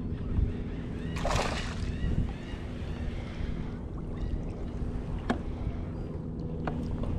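A hooked flatfish splashing at the surface as it is reeled up to the kayak's side, with a loud burst of splashing about a second in. A steady low hum runs underneath.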